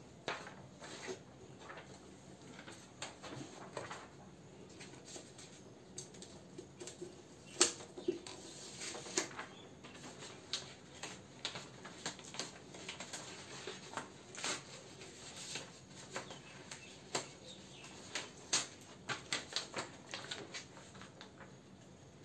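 Irregular light clicks and rustles, like small objects or paper being handled, coming every fraction of a second to a second with no steady rhythm.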